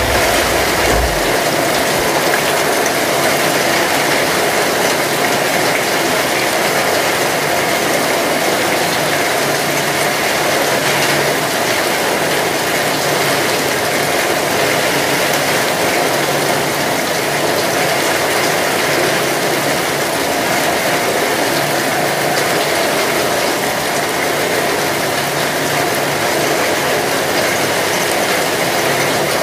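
Heavy rain falling steadily: a loud, dense, even clatter of drops, with water pouring off the tiled roof eaves.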